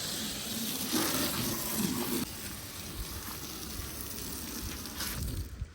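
Water spraying from a garden hose nozzle onto a car body: a steady hiss that cuts off near the end.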